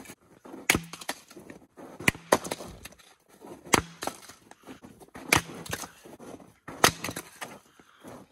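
An axe chopping firewood on a chopping block: five sharp strikes about every second and a half, each with a short splintering crack as the wood and bark give way.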